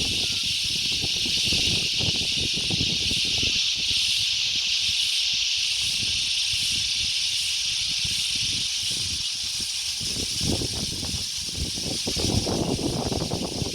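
Steady, high-pitched hissing drone of an insect chorus, with gusts of wind buffeting the microphone that ease in the middle and pick up again near the end.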